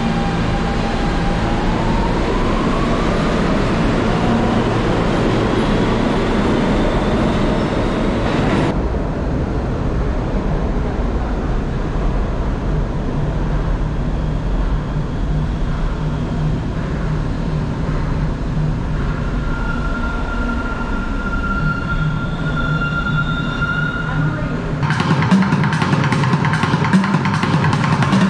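New York City subway train running, its whine rising in pitch over the first few seconds as it speeds up, over a steady rumble of wheels on rails. About three seconds before the end, fast drumming starts.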